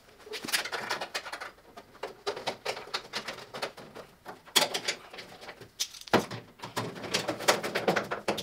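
Irregular clicks, taps and rattles of hand work on a car body: metal parts and fasteners being handled while a body panel is bolted on.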